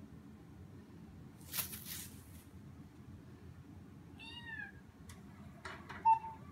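Bengal kitten giving a short, high meow that falls slightly in pitch about four seconds in, then a second, very brief mew near the end, the loudest sound. A short scratchy rustle comes about a second and a half in, and a few light taps near the end.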